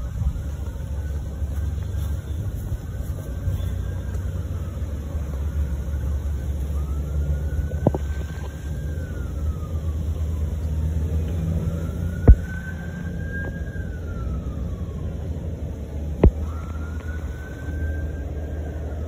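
An emergency-vehicle siren wailing, its pitch sweeping slowly up and down about every four seconds, over a steady low rumble. Three sharp pops cut through, about eight, twelve and sixteen seconds in, the last two very loud.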